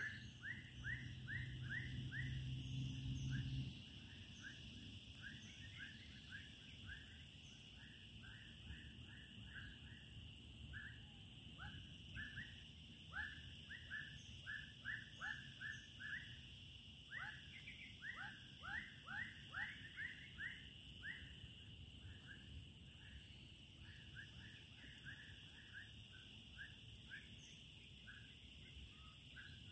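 Outdoor ambience by a creek: birds chirping in quick runs of short repeated chirps over a steady, faint, high-pitched insect drone. A low hum is heard for the first few seconds, then stops.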